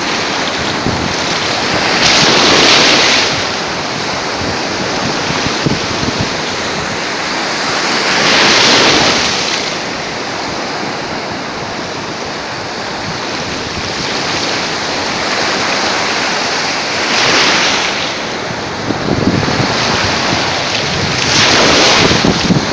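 Sea waves washing onto the shore: a steady rush of surf that swells louder four times, several seconds apart, as waves break, with wind buffeting the microphone.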